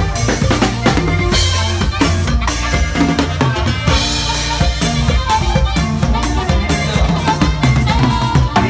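Norteño band music, with a drum kit and bass keeping a steady beat under pitched instrument lines.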